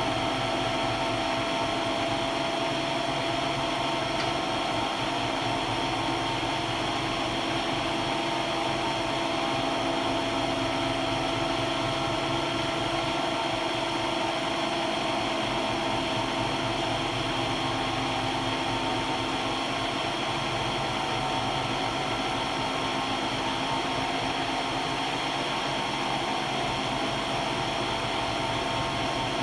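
Machine tool running steadily while boring the inside of a metal adapter plate, a constant hum and whine with no change.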